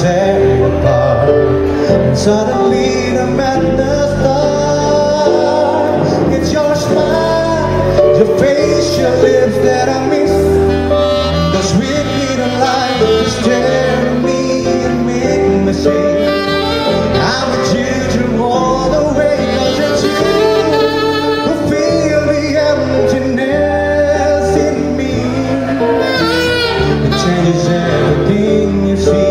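Live romantic jazz band playing a song, with male and female vocals over saxophone and hollow-body electric guitar.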